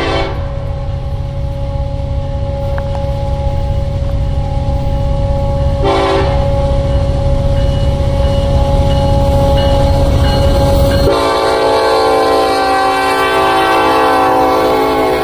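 Union Pacific diesel locomotives at the head of a coal train sounding the horn for a grade crossing as they approach. A long blast ends just at the start, a short blast comes about six seconds in, and a long blast runs from about eleven seconds in to near the end, over a steady engine rumble that grows louder as the train nears.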